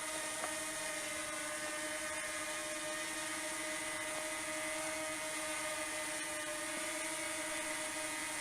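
Quadcopter drone hovering, its propellers giving a steady, even whine.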